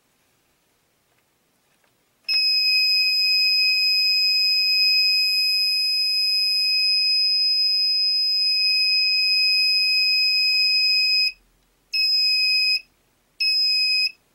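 Electronic buzzer of a homemade laser-beam alarm circuit on a breadboard sounding a loud, steady high-pitched tone for about nine seconds, then two short beeps.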